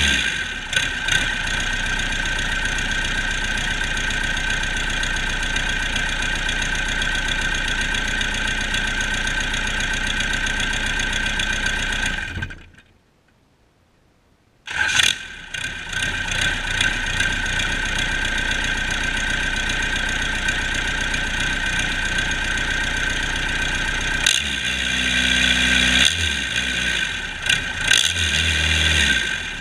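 Cummins 4BT 3.9L turbocharged four-cylinder diesel running at a steady speed with a high whine over the engine note. About twelve seconds in it dies away to near silence for about two seconds, then comes back abruptly and runs again. It is revved at the injection pump lever near the end.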